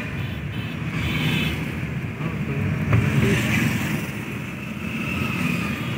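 A car driving at speed at night, its engine and road noise heard from inside the cabin as a steady low rumble.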